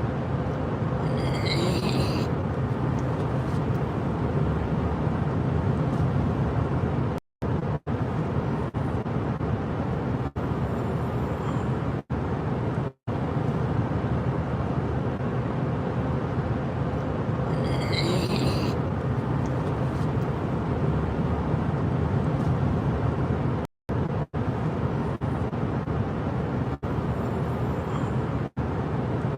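Steady low rumbling noise, cut by a few brief total dropouts.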